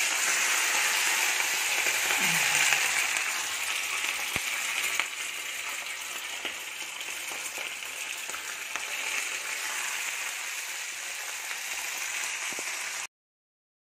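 Fish pieces deep-frying in hot oil in a pan: a loud, steady sizzle with fine scattered crackles. It is strongest over the first few seconds after the fish goes in, eases slightly, then stops abruptly near the end.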